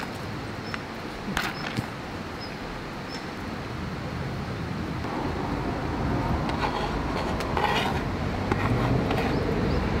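Steady hiss of rain, with a bird chirping faintly a few times in the first few seconds. Soft rustles and clicks from vegetable garnish being sprinkled over a wooden plate come in the second half, as the sound grows a little louder.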